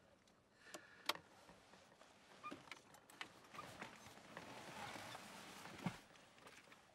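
Faint handling sounds of a man shifting in a car's driver seat and climbing out through the open door: a few light clicks and knocks, the sharpest about a second in, clothing rustle, and a dull thump near the end.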